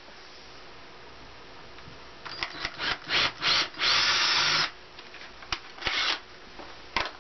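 Cordless drill boring into a solar panel's wooden frame to enlarge a cable hole. It starts about two seconds in with several short trigger bursts, then runs steadily for about half a second, then gives one more short burst near the end, with a few clicks between.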